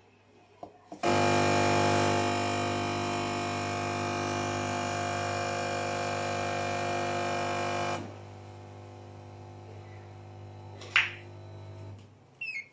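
Vibratory feeder of a semi-automatic weighing filling machine buzzing as it feeds dishwasher powder onto the scale: a loud, steady, droning buzz that starts about a second in. About eight seconds in it drops to a much quieter hum, and it stops near the end, once the set 500 g weight is reached. There is a single click shortly before it stops.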